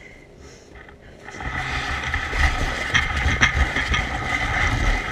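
Quiet at first, then about a second and a half in a loud, steady rumble with rattling and clicks sets in as the dog-drawn rig gets moving at speed.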